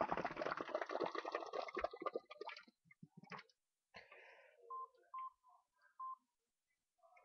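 Bubbles blown through a drinking straw into a plastic cup of water: a continuous rapid bubbling that dies away about two and a half seconds in. Later come three short electronic beeps from a handheld stopwatch.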